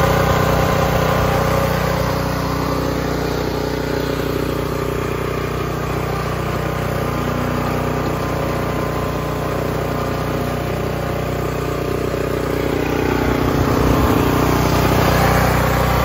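Predator 224cc (6.6 hp) single-cylinder OHV gas engine, newly fitted to a rototiller, running steadily after its first start. It gets slightly louder about two-thirds of the way through.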